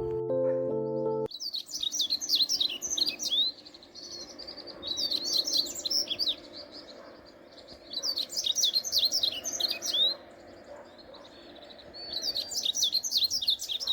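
Keyboard music cuts off about a second in, then a songbird sings four quick phrases of rapid, high, down-slurred notes, each about two seconds long with short pauses between.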